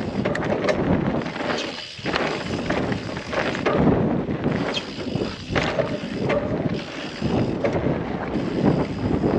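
Mountain bike riding fast down a dirt trail: wind buffeting the microphone over the rumble of knobbly tyres on dirt, with small knocks and rattles from the bike over bumps.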